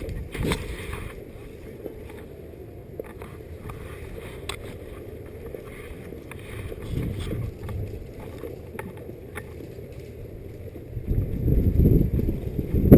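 Wind rumbling on the microphone, with scattered light clicks, growing louder near the end.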